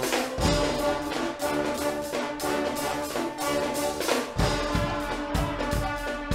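Guggenmusik band playing loud carnival brass with drums: trombones and trumpets holding chords over a steady beat, with heavy bass drum strokes coming in about four seconds in.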